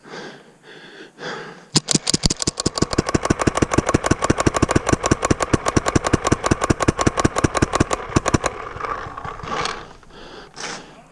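Paintball marker firing a long, rapid string of shots, about a dozen a second, for roughly six and a half seconds, then stopping.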